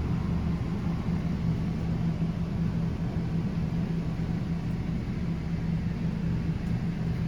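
Steady low mechanical hum with an unchanging drone, from a machine running inside the motorhome.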